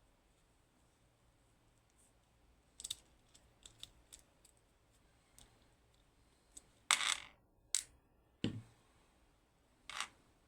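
Small metal lock parts and tools clicking and scraping as a pin tumbler lock is taken apart. Scattered light clicks start about three seconds in, then a louder short rattle about seven seconds in, a dull knock a little after, and one more click near the end.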